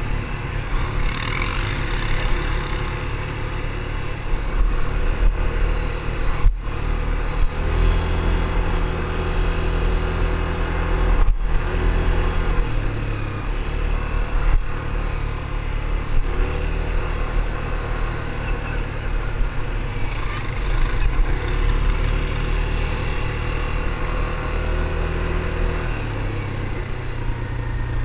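Yamaha ATV engine running under way on a dirt trail, its note rising and falling with the throttle. The sound cuts out for an instant twice.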